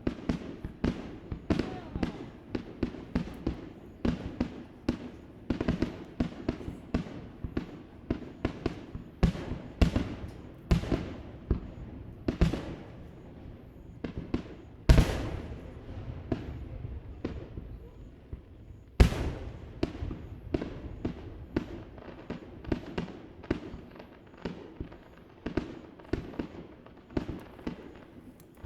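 Fireworks display, shells bursting in quick succession, about two sharp bangs a second, each followed by an echo. The two loudest booms come about fifteen and nineteen seconds in.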